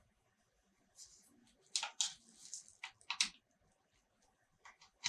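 Short plastic clicks and scrapes of a plug and cable being handled and pushed into a cube-shaped power strip, in two small clusters around two and three seconds in, with a couple of lighter clicks near the end.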